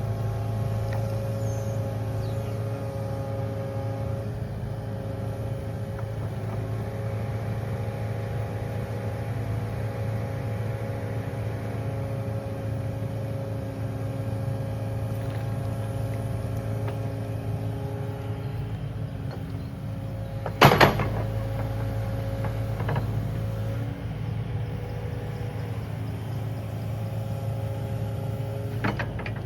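Kubota KX080 mini-excavator's diesel engine running steadily while it digs, its hum shifting slightly in pitch as the hydraulics work. About two-thirds of the way through comes one loud, sharp knock, with a couple of fainter knocks later.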